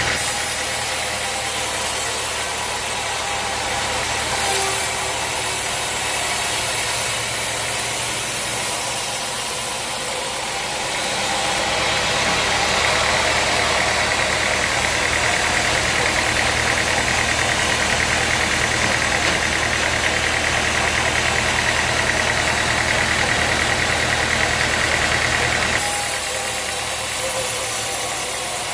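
Sawmill machinery running steadily with a low hum. A louder, higher steady whine joins it about twelve seconds in and drops away a few seconds before the end.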